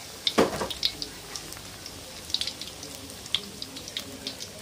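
Tofu stuffed with meatball (tahu bakso) deep-frying in hot oil in a wok: steady sizzling with scattered crackles and pops. A brief louder noise comes about half a second in.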